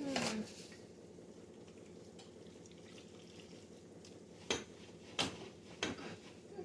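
Condiment jars and bottles handled and set down while a fridge is cleared out: a short scrape right at the start, then three sharp knocks spaced about two-thirds of a second apart, over a steady low hum.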